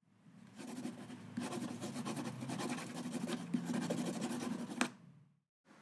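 Pencil scribbling on paper in quick, rapid strokes over a low steady hum, ending with a sharp click just before it cuts off.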